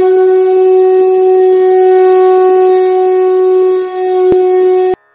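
Conch shell (shankh) blown in one long, loud, steady blast on a single pitch, with a brief dip about four seconds in, cut off abruptly near the end.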